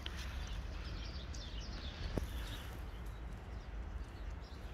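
Small birds chirping in quick, short falling notes over a steady low outdoor rumble, with one sharp click a little after two seconds in.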